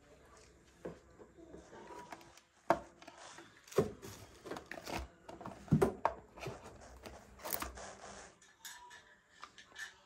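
Toiletries being put down and slotted into ceramic cup holders and trays on a plastic bathroom cart: a string of light knocks and clatters, the sharpest in the middle few seconds.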